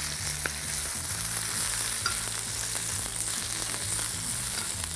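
Spinach sizzling in hot oil with sliced garlic in a frying pan, being turned with metal tongs.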